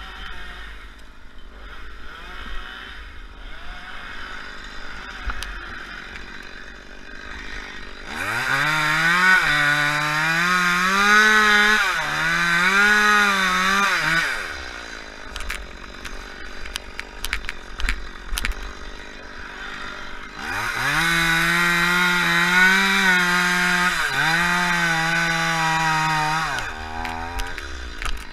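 Two-stroke chainsaw idling, then opened up twice for cuts of about six seconds each, its note wavering as it bogs under load in the palm trunk, with a few short revs near the end.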